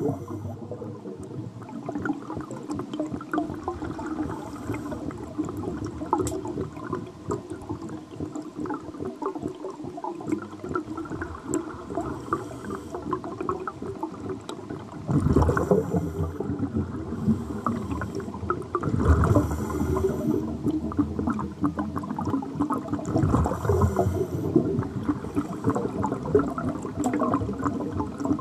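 Underwater scuba breathing: a continuous gurgling, with louder bursts of exhaled bubbles from a scuba regulator about every four seconds in the second half.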